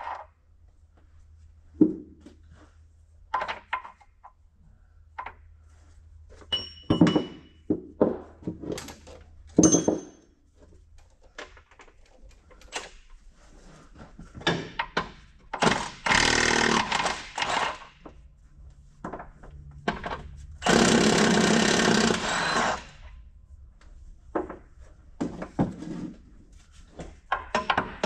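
Hand tools clanking and knocking on metal engine parts of a Cat 3406B diesel under teardown, a few strikes ringing briefly. A power tool runs in two bursts of about two seconds each, near the middle.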